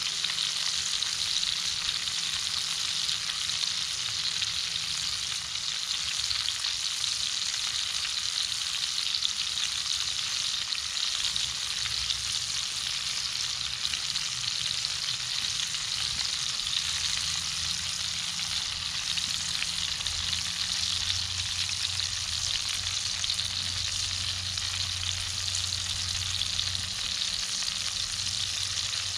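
Steak frying in a Lodge cast-iron skillet over a wood fire: a steady sizzle with the steak on its flipped side.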